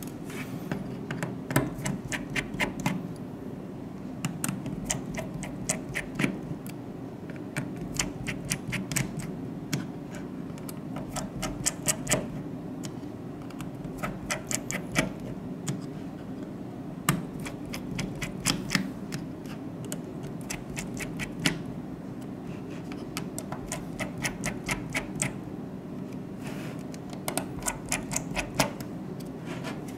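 Bursts of small sharp clicks and ticks from a precision screwdriver working the tiny screws on the plastic back housing of a Xiaomi Redmi 2 phone, over a steady low hum.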